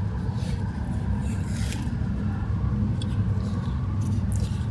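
Goat leather being drawn through a Schärf-Fix bookbinder's skiving machine, its razor blade shaving the leather thin: a few soft scraping strokes over a steady low hum.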